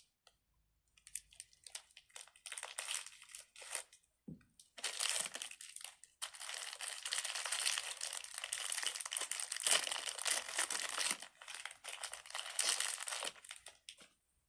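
Crinkly plastic packaging being handled, in a few scattered crackles at first, then crinkling almost continuously from about five seconds in until shortly before the end.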